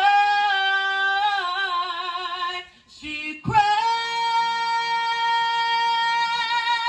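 A man singing unaccompanied into a microphone, holding long high notes. The first wavers with vibrato and steps down in pitch. After a short break about three seconds in, he holds a second note steady for about four seconds.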